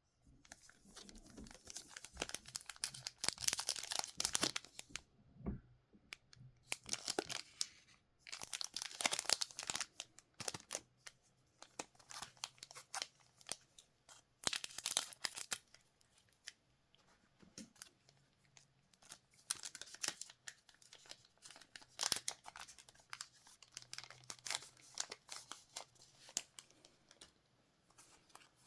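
Trading-card packaging being torn open and crinkled by hand: repeated bouts of tearing and crackling of thin wrappers, a few seconds each with short pauses between.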